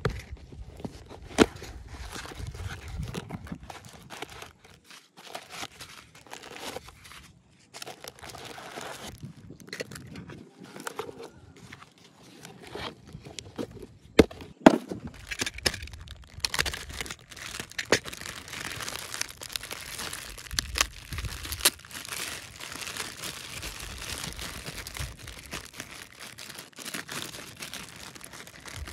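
Packaging being handled and torn open: irregular crinkling and tearing, with a few sharp clicks and knocks along the way.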